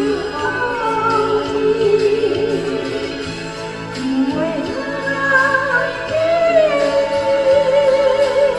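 A song: a singer holds long, wavering notes over instrumental accompaniment.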